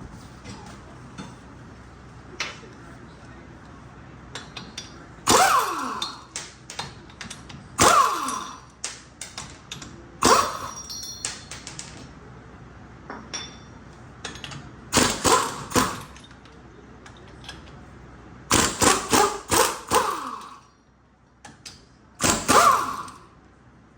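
Metal tools and parts knocking and clanking on the truck: clusters of several sharp knocks every few seconds, the loudest with a short metallic ring after them.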